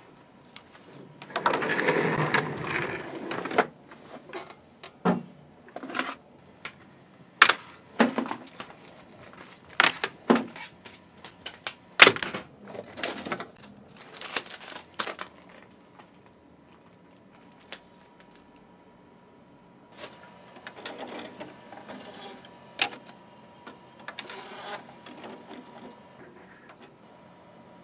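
Hands handling a plastic CD case and disc: a rustle, then a series of sharp clicks and knocks, and lighter handling noises as the disc is loaded into a CD player.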